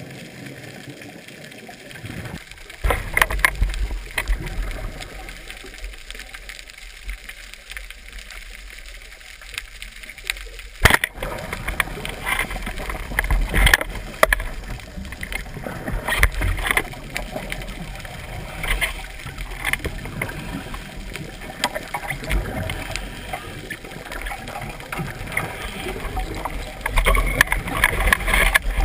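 Muffled underwater noise heard through a GoPro's waterproof housing: a low rush of water with irregular louder surges, and one sharp knock about eleven seconds in.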